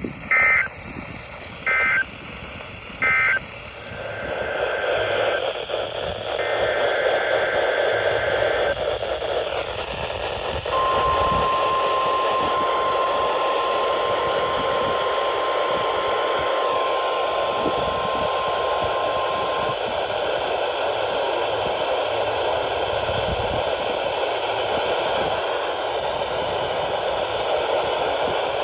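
NOAA Weather Radio receiver audio: three short bursts of SAME digital data tones, the end-of-message code that closes a weekly test, then radio static hiss. About eleven seconds in, the steady 1050 Hz warning alarm tone sounds for about nine seconds, then the static hiss returns.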